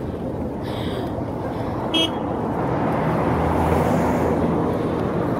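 Street traffic noise, a steady rushing that swells after about three seconds, with a short high toot about two seconds in.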